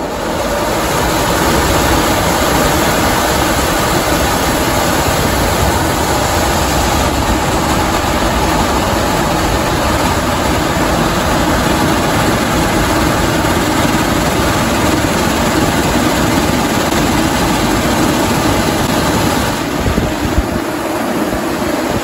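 HVAC squirrel-cage blower running as a shop fan: a loud, steady rush of air over the motor, growing louder in the first second or two. Near the end the rush eases a little as a board across the outlet restricts the discharge, which cuts the motor's current draw. A single knock follows.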